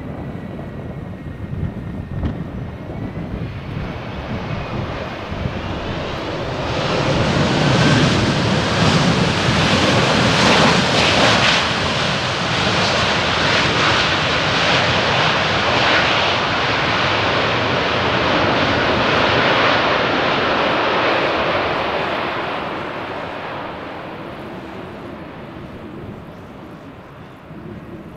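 Airliner's jet engines passing close on landing: the sound swells over a few seconds, stays loud for about twelve seconds, then fades away. A falling whine is heard at the very start.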